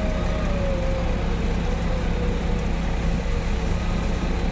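Off-road 4x4's engine running steadily at low revs, with a thin whine that slides down in pitch at the start and then holds steady.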